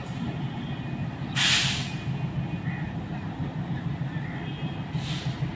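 ALCO diesel locomotive engine running at low revs with a steady, pulsing rumble. A loud hiss of released brake air comes about a second and a half in, and a shorter, fainter hiss comes near the end.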